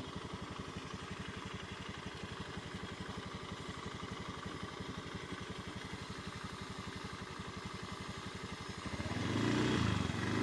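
Motor scooter engine idling with a fast, steady putter; it grows louder near the end.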